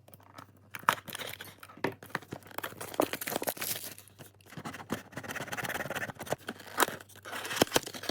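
Sealed trading card box being opened by hand: packaging torn and crinkled, with many sharp crackles and stretches of rustling.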